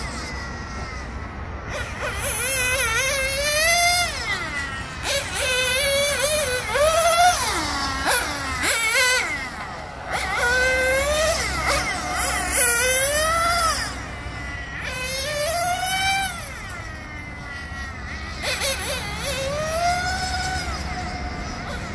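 Small two-stroke glow engines of nitro RC touring cars (Xray NT1) screaming at high revs. The pitch climbs and drops every second or two as the cars accelerate and brake around the track, and at times several whines overlap.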